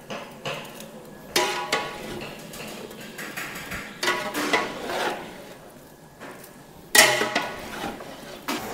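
Metal ladle scraping and clanking against a large aluminium pot while mixing raw marinated chicken pieces. There are a few separate strokes, the loudest about seven seconds in.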